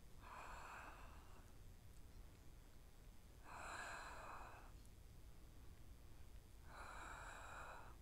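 Faint breathing by a woman: three audible exhalations, each about a second long and roughly three seconds apart, in time with her side crunch repetitions.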